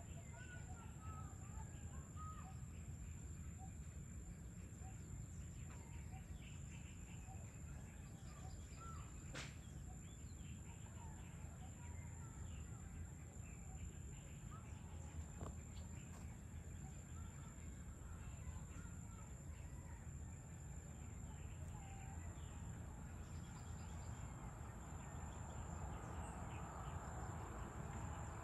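Faint ambience of scattered short bird chirps and calls over a steady low rumble, with a constant high-pitched whine. Two sharp clicks come through, about nine seconds in and again about fifteen seconds in.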